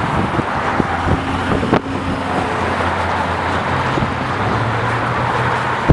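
Highway traffic passing, a steady rush of tyres and engines, with a low vehicle engine hum that shifts up in pitch a little after halfway.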